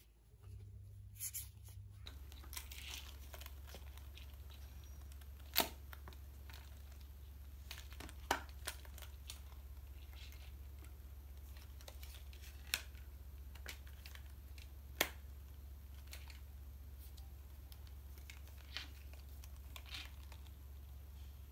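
Phone cases being handled and turned over on a tabletop: soft rustling and scraping, with four sharp clicks and taps of the cases spread through, over a steady low hum.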